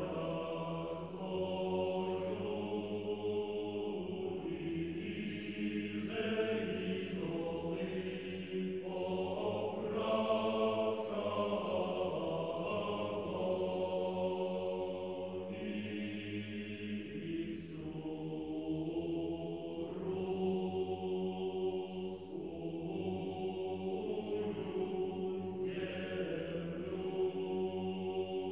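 Orthodox choral chant: a choir singing slowly, holding long chords that change every couple of seconds, with the hiss of sung consonants now and then.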